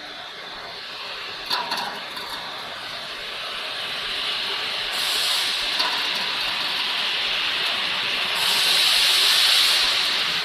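The belt-lifting mechanism of a vegetable bubble-washing machine running as it raises the conveyor belt: a steady hissing machine noise that grows louder, with a sharper high hiss about five seconds in and again near the end.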